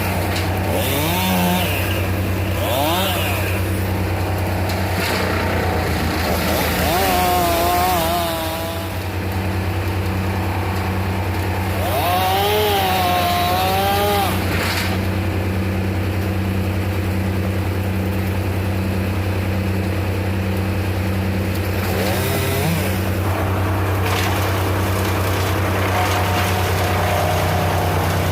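Gas chainsaw running, its pitch rising and falling several times as it is revved, over a steady low engine drone.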